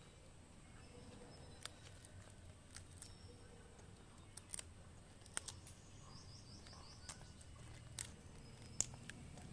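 A parrot's beak clicking and snapping at a plant, faint and irregular, with a quick run of about six short high chirps about six seconds in.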